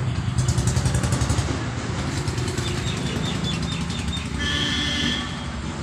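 An engine running close by: a steady low rumble with fine rapid pulsing. A high-pitched steady tone of several notes joins about four and a half seconds in.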